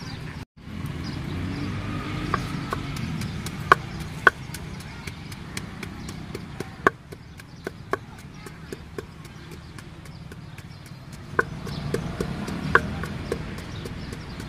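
Wooden pestle knocking in a clay mortar as green papaya salad (som tam) is pounded: sharp, irregular knocks, sometimes two close together, sometimes a few seconds apart, over a low background hum.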